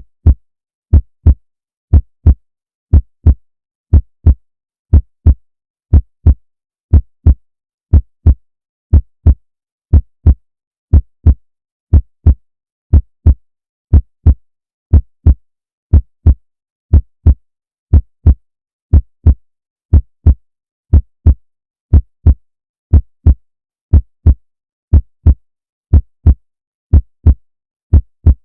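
Heartbeat sound: a steady lub-dub, two short low thumps close together, repeating at about one beat a second.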